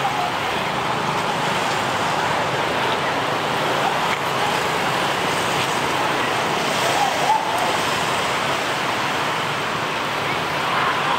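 Steady hum of city traffic, with faint voices now and then.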